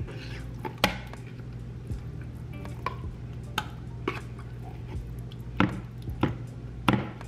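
Wooden spatula scooping thick canned pumpkin purée out of a tin can, with soft scraping and several sharp knocks of the spatula against the can, spaced irregularly about a second apart.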